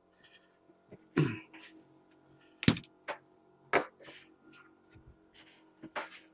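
A few separate short, sharp clicks and scrapes of a blade cutting into the cracked plastic bumper, over a faint steady hum.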